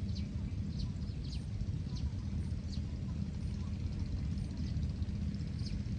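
Birds giving short, falling chirps, one every half second to a second, over a steady low rumble. The rumble is typical of wind on the microphone in open fields.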